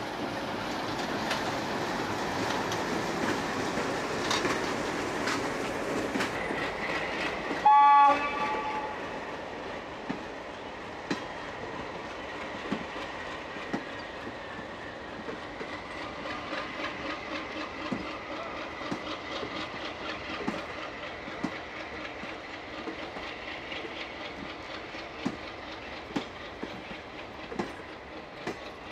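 Diesel-hauled passenger train passing slowly: the locomotive's running noise first, then one short, loud horn blast about eight seconds in. After that the coaches roll by with wheels clacking over the rail joints about once a second.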